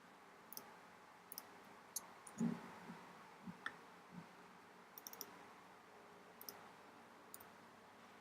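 Faint, irregular clicking of a computer keyboard and mouse, single clicks and quick little runs of two or three. About two and a half seconds in comes a louder soft thump.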